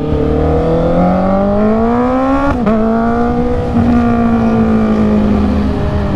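Honda CB650R's inline-four engine pulling away under acceleration, its pitch climbing for about two and a half seconds. It dips at an upshift, steps again about a second later, then settles to a steady cruise.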